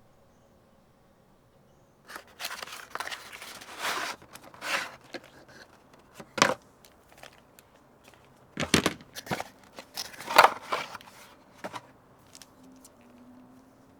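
Handling noises: an irregular run of knocks, clicks and rustles, with the loudest knocks near the middle and toward the end.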